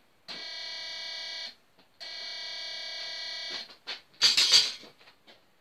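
Alarm of a Walker 18 DIY walk-through metal detector sounding twice, a steady buzzy tone each time lasting just over a second: it is detecting a large saw carried through the frame. A short loud noisy burst follows about four seconds in.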